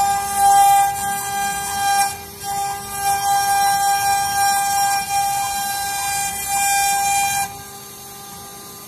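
CNC wood router spindle running at high speed, a steady high whine over a hissing cutting noise as the bit carves a wooden relief panel. It dips briefly about two seconds in, and about seven and a half seconds in the whine drops out and the sound goes much quieter.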